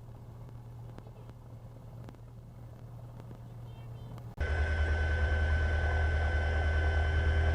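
Faint steady low hum, then, after an abrupt cut about four seconds in, the much louder steady drone of a light aircraft's piston engine and propeller heard inside the cockpit, with a thin steady high whine over it.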